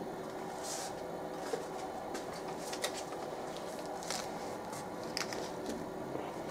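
Closed auto heat press pressing a polyester tea towel: a faint steady hum with a few soft ticks and brief hisses.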